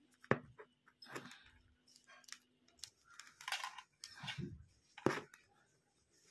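Small clicks and scraping from handling a mobile phone battery and multimeter test probes. There is a sharp tap about a third of a second in and another about five seconds in, with rustling and scraping in between.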